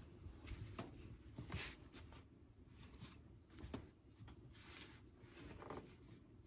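Near silence: quiet room tone with a few faint, soft clicks and rustles scattered through.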